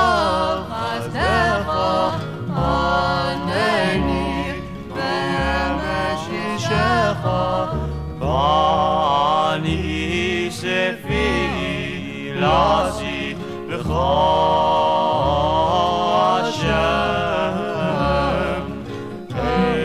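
Jewish religious song playing from a 1967 stereo vinyl record: a gliding melodic lead over a bass line of held notes.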